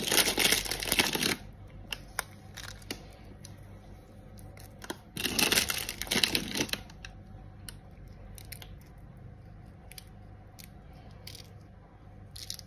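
Dark demerara sugar sprinkled from its packet over cake batter: two grainy, crinkly rustles about five seconds apart, each lasting a second or more, with scattered small ticks between them.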